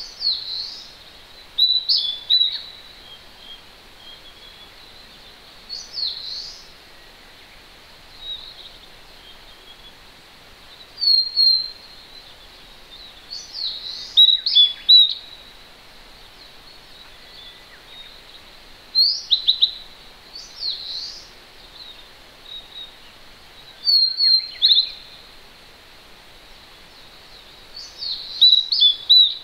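Wild songbirds singing short, high, clear phrases, one every few seconds, over the steady hiss of a distant mountain stream.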